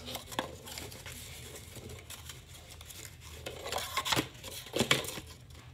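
Accordion-folded paper rustling and crackling as it is handled, with a few crisp crackles near the start and a denser cluster about four to five seconds in.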